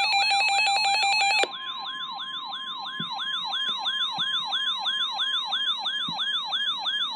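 Emergency Alert System attention signal ahead of a severe thunderstorm warning: an electronic siren-like tone sweeping up and down about three times a second. For the first second and a half it runs over a pulsing buzz, then over a steady single-pitched alert tone.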